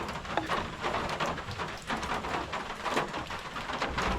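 Steady rain falling on surfaces, with many small irregular taps and clicks.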